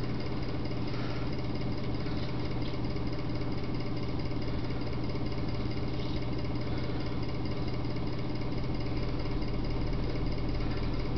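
A steady electrical hum with a buzz of many evenly spaced overtones, unchanging throughout, with a few faint soft noises over it.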